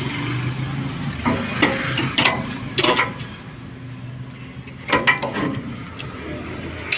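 Several sharp metallic clinks and knocks as steel parts of a dump truck's planetary wheel hub are handled and pulled apart, over a steady low machine hum.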